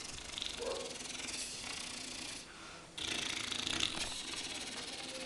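A man imitating a rattlesnake with his mouth: a long rasping hiss. It breaks off briefly about two and a half seconds in, then starts again.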